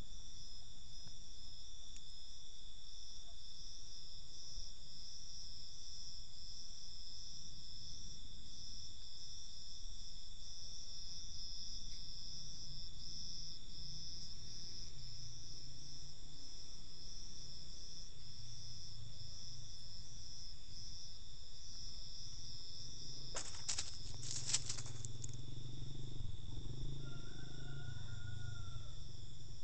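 Steady, high chirring of night insects, with one band pulsing in a regular rhythm. A brief cluster of clicks comes near the end.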